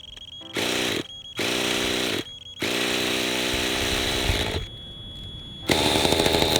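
Engine of an old radio-controlled model helicopter being spun in three short bursts, then starting up and running steadily and louder near the end.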